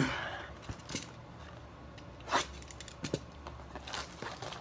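Hands handling trading cards and a cardboard blaster box on a table: a sharp clack at the very start, then scattered light taps and scrapes, with a few quick scrapes near the end as the box is opened.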